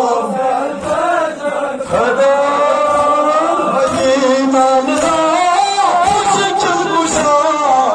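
Men's voices chanting a Kashmiri noha, a sung mourning lament, with chest-beating strokes of matam falling roughly once a second.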